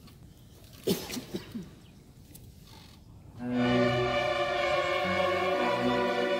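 After a hush broken by a few brief noises, a string orchestra of violins and cellos starts playing about three and a half seconds in. It sounds a sustained chord over changing low notes.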